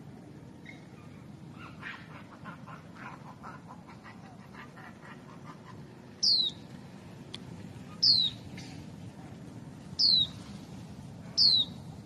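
High, short whistled calls that fall steeply in pitch, repeated four times about every two seconds in the second half. Before them comes a run of soft, rapid chattering pulses.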